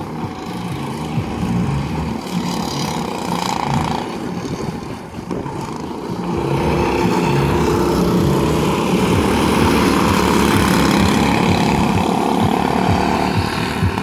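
Go-kart engines running as karts lap the track, louder from about six seconds in as they come past nearby.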